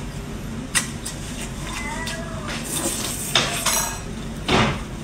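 Tableware clinking and knocking while someone eats: a few sharp clicks spread through, and a louder, longer scrape-like knock near the end, over a steady low background hum.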